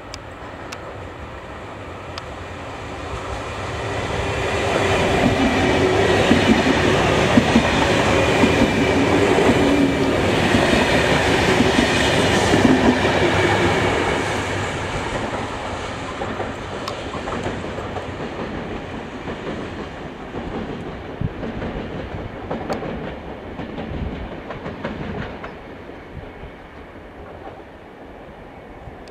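Alstom AGV high-speed electric multiple unit passing through a station. The noise of the train and its wheels on the rails builds up about four seconds in and is loudest for roughly ten seconds, with a whining tone over the rumble. It then slowly fades as the train moves away.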